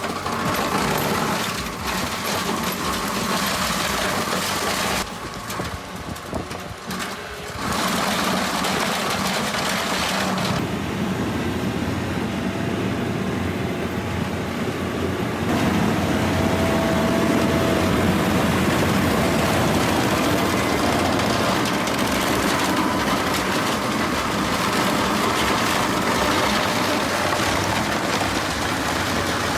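Heavy machinery with engines running, a steady mechanical din that changes abruptly several times as one clip cuts to the next.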